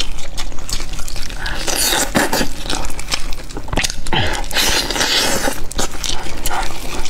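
Close-miked eating of chicken: meat pulled apart and bitten, then chewed with moist smacking and many short, sticky clicks.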